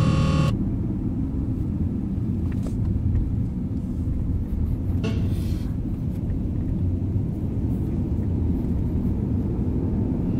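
A radio's electronic interference tones cut off about half a second in. What follows is a low steady rumble, with a short burst of hiss about halfway through and a few faint clicks.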